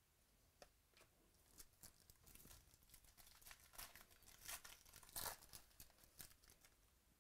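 Faint crinkling and tearing of trading-card packaging as cards are handled: a run of short crackles through the middle of the stretch, loudest about five seconds in.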